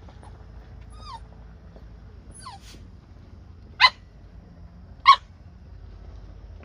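Two short, sharp animal calls about a second and a half apart, each a single yelp-like note, over a steady low rumble; fainter falling chirps come earlier.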